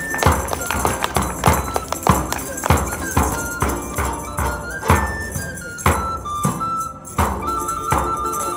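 Live medieval-style folk music: a frame drum beating a steady rhythm under a recorder melody, with a plucked lute-type string instrument. The recorder holds a long note near the end.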